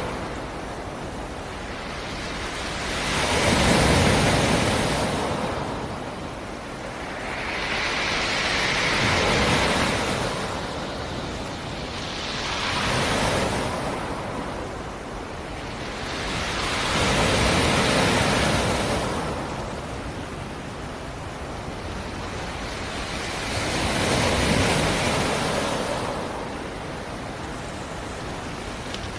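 Black Sea surf: waves wash in and draw back in slow swells, five in all, each rising to a broad rushing hiss and fading back into a steady background wash.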